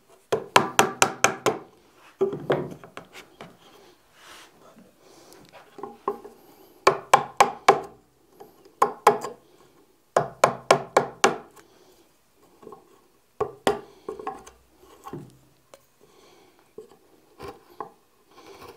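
A hand-forged wood chisel being struck to cut a shallow recess into wood, in quick runs of several light taps with short pauses between them.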